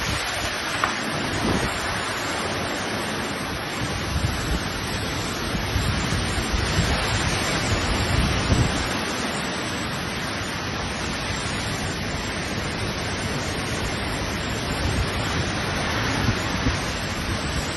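Hurricane wind and heavy rain lashing trees, a steady rushing noise with gusts buffeting the microphone in low rumbles.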